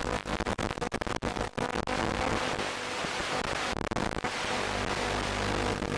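Static hiss from an analog FPV video receiver's audio channel, full of rapid crackling dropouts for about the first two seconds, then a steadier hiss with a faint hum underneath. It cuts off abruptly just after the end.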